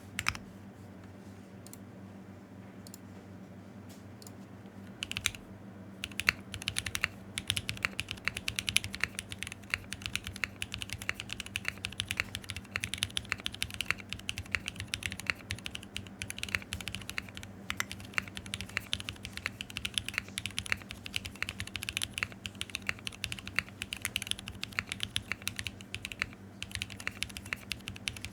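Fast typing on a custom Unikorn R2.1 mechanical keyboard with lubed Zykos switches with films, a carbon fibre plate and Infinikey Hive keycaps. A single keystroke comes at the very start, then after a few seconds of quiet a continuous run of rapid keystrokes begins about five seconds in.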